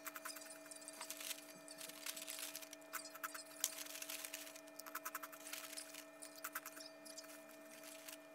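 A crinkly foil snack pouch of protein snack is handled while the snack is eaten, giving irregular short bursts of crackling, over a faint steady hum.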